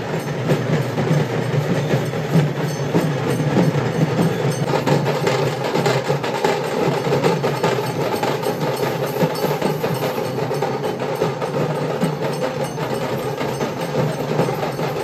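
Festival percussion music: rapid, dense drumming that keeps going without a break.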